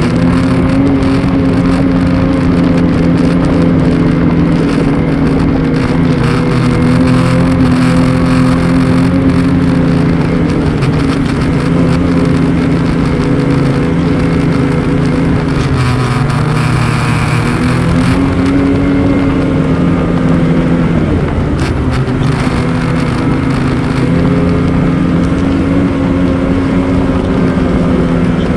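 Ski-Doo XRS 850 snowmobile's two-stroke twin engine running at a steady trail speed, with wind and track noise. Its pitch drops twice past the middle as the throttle eases off and climbs back each time.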